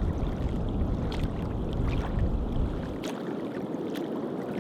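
Shoreline noise of water washing among the rocks, with wind rumbling on the microphone that drops away about three seconds in.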